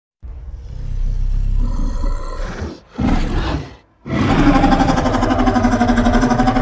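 Monster roar sound effect: after a brief dead silence, a low rumbling growl, a short roar, then a long sustained pitched roar from about four seconds in.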